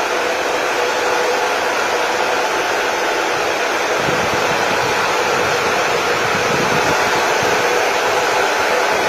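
Loud, steady whir of a room of ASIC cryptocurrency miners, their power-supply cooling fans running, with a faint steady hum through it. A deeper rumble comes in about four seconds in.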